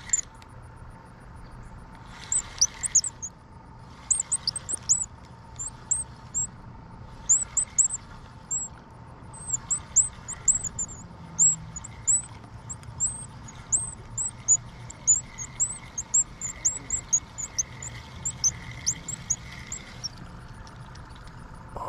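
Small birds chirping: many short, high-pitched chirps repeating quickly, dying away shortly before the end.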